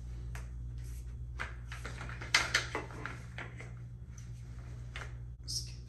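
Gaming chair parts being fitted together by hand: scattered clicks and knocks, with a quick cluster of louder knocks about two and a half seconds in.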